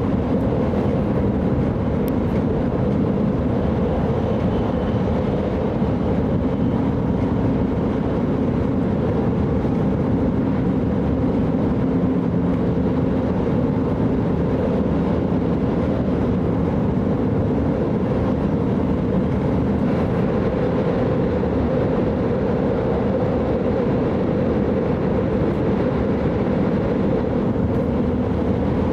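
Steady running noise of an E5 series Shinkansen heard from inside the passenger cabin: an even, unbroken rumble with a faint hum.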